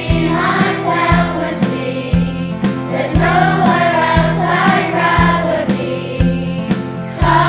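Children's choir singing a song together over a backing track with a steady beat.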